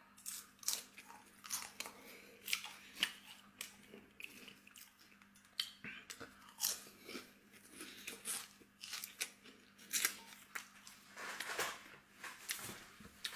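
Close-miked chewing of crisp fried fish, a run of irregular crunches and wet mouth clicks.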